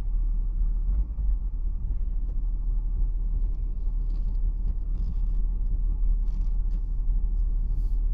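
Steady low rumble inside a BMW 7 Series' cabin as it drives slowly over a rutted, refrozen icy road, with a few faint clicks in the second half.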